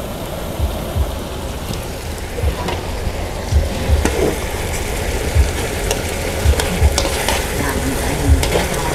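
Chicken drumsticks sizzling in garlic sauce in a wok, with metal tongs clicking now and then against the wok and a metal tray as the pieces are lifted out.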